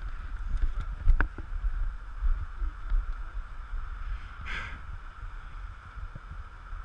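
Wind rumbling on the microphone, with a sharp knock about a second in and a brief rustle about four and a half seconds in.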